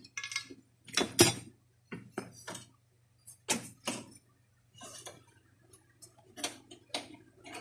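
About ten irregular clicks and knocks of the hard parts of a disassembled Daisy Power Line 1200 air pistol, and of the tools around it, being handled and set down on cardboard.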